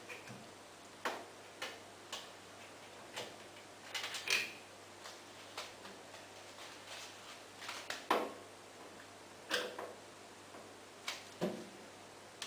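Irregular clicks and light knocks, about one a second, from hands and tools working on a washing machine's plastic and metal parts during removal of the water inlet valve; a short cluster of clicks comes about four seconds in and the sharpest knock about eight seconds in.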